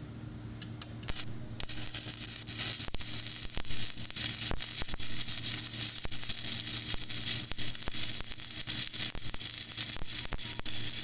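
Stick-welding arc on steel C-channel: a few sharp crackles as the electrode is struck, then a steady crackling sizzle from about a second and a half in as the bead is laid. A low steady hum runs underneath.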